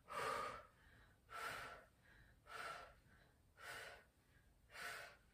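A woman's short, rhythmic exhalations, five of them about one every second and a quarter, the hard breathing of a Pilates single-leg stretch as she switches legs.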